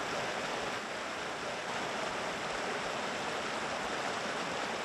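Small creek rushing over rocks, a steady rush of white water.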